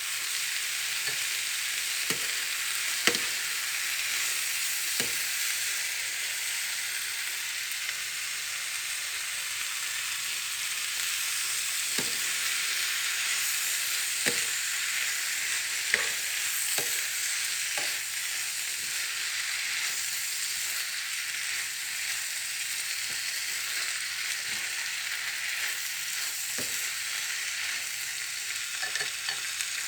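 Cabbage sizzling as it is stir-fried in a hot pan: a steady frying hiss, broken by scattered sharp knocks and clicks of the stirring utensil against the pan.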